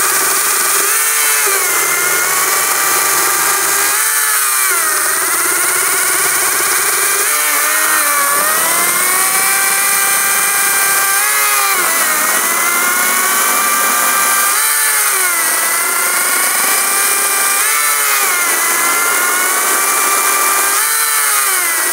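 ES Industries LCHS1454 54V cordless 14-inch chainsaw running at full speed and cutting a log. Its motor whine sags in pitch and climbs back about every three to four seconds as the chain takes load in the wood.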